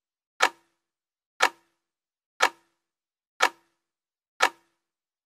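Countdown-timer sound effect: a sharp clock-like tick once a second, five times, each with a brief low tone trailing it.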